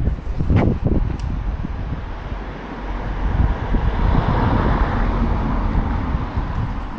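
City street traffic: a vehicle passes, its tyre and engine noise swelling from about three seconds in and fading near the end, over gusts of wind on the microphone.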